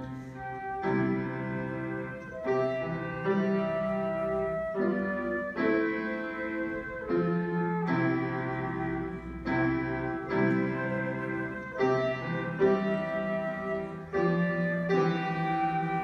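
Flute and grand piano playing together, starting suddenly after a near-silent pause. The piano's chords change about once a second under the flute's held melody notes.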